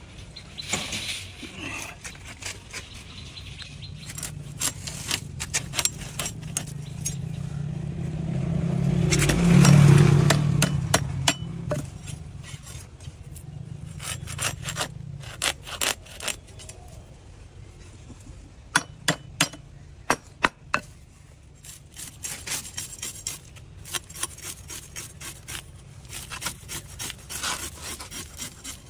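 Fish being scaled against a boti, the fixed curved blade on a wooden base: repeated rasping scrapes with sharp clicks as the scales come off. A passing vehicle's low hum swells to its loudest about ten seconds in, and a run of sharper clicks comes around twenty seconds in.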